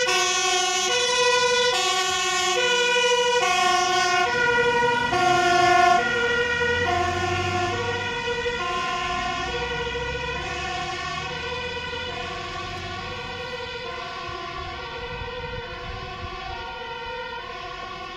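Fire engine's two-tone siren, switching between a low and a high tone about every three-quarters of a second. It is loudest about six seconds in, with a low rumble as the truck goes by, then slowly fades as it drives away.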